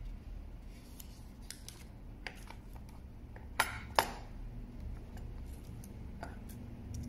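Light clicks and taps of a steel digital caliper being handled, with two sharp knocks a little over halfway through as it is set down in its hard plastic case.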